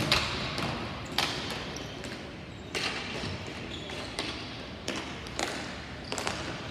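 Ball hockey play: a string of sharp, irregularly spaced knocks from sticks striking the plastic ball and the ball hitting the rink boards.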